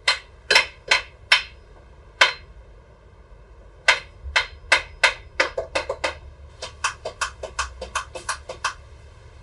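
A hand tool striking parts in a car's engine bay: five hard blows in the first couple of seconds, then after a pause a quicker run of lighter taps, about three or four a second, while the owner chases a no-crank fault.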